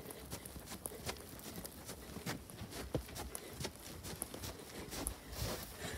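Footsteps in snow climbing snow-covered wooden steps and crossing onto a porch: irregular soft steps and knocks.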